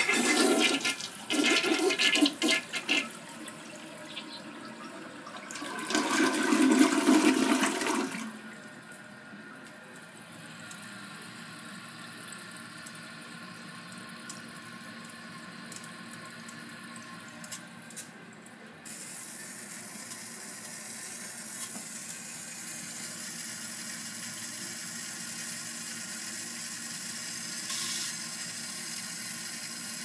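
Toilet flushing: water rushes loudly through the bowl in uneven surges for several seconds, then the tank refills with a steady hiss of running water. About two-thirds of the way through a louder, higher hiss sets in and holds, the weird noise the toilet makes while refilling.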